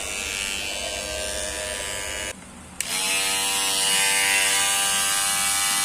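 Kemei electric hair clipper running with a steady buzz after its blade spring was re-bent and the blades refitted. Some noise remains, but it is much reduced. About two and a half seconds in the buzz cuts out for half a second, then resumes a little louder with a clearer hum.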